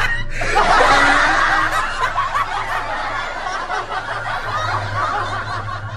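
Laughter from many voices at once, swelling about half a second in and then slowly fading.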